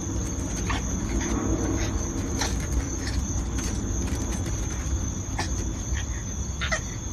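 Steady high-pitched insect trill over a low rumble, with a few light clicks scattered through it.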